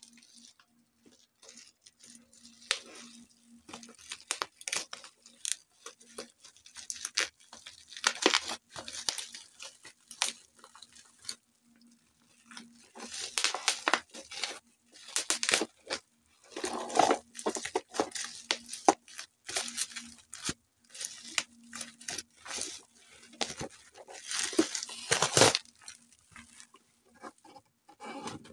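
Bubble wrap and plastic wrapping crinkling, crackling and tearing in irregular bursts as it is pulled off a cardboard box by hand.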